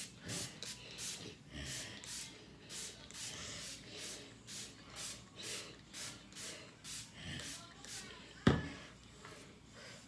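Trigger spray bottle of water squirting onto hair in quick repeated pumps, about two a second. Near the end, a single sharp knock.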